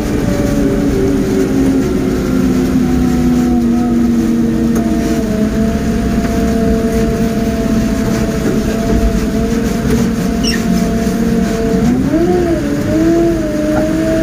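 A mobile crane's engine, heard from inside its cab, running under way with a steady drone. Its pitch eases down slowly over the first few seconds, holds steady, then dips and climbs back about twelve seconds in.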